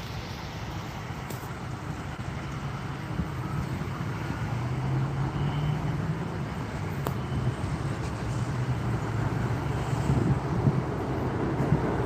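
Jet aircraft engine noise: a low, steady rumble that grows gradually louder as the aircraft approaches.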